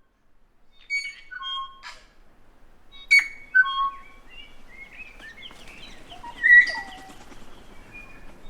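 Kākā, the New Zealand forest parrot, calling: ringing whistled notes that step down in pitch, mixed with shorter chattering calls. A sharp, loud call comes about three seconds in.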